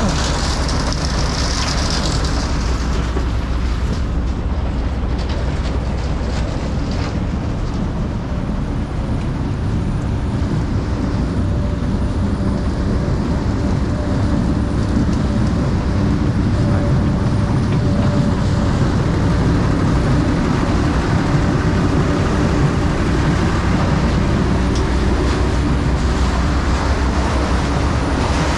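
Steady low mechanical rumble of a running machine or vehicle, continuous and without a break.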